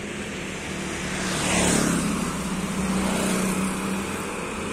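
Street traffic going by close to the microphone: a vehicle passes with a swell of engine and tyre noise that peaks and falls away about two seconds in, and a steady engine hum carries on under it.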